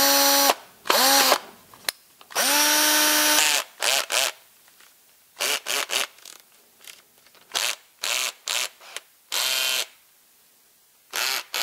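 Makita FD02 cordless drill's brushed motor run in a string of short trigger pulls, each a whine that rises as the motor spins up and drops as it coasts down, the longest lasting about a second. The drill is running again after its dirty commutator was sanded clean.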